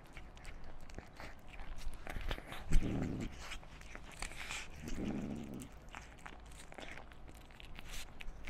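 Kitten eating flaked tuna close to a microphone: quick wet chewing, licking and lip-smacking clicks, with two louder, low, muffled sounds about three and five seconds in.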